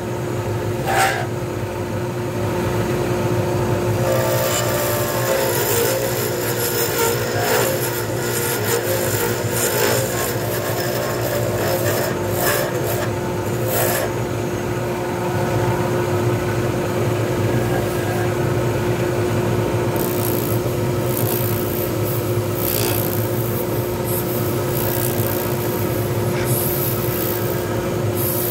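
Small lathe running with a steady motor hum while a hand-held turning tool cuts the spinning resin pen blank, giving an uneven scraping and rasping noise.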